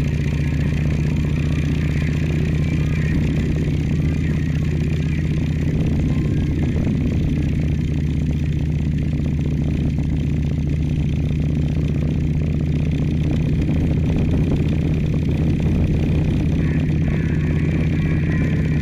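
Motorcycle engine running steadily at cruising speed, heard on board the moving bike as a constant low drone with road noise over it.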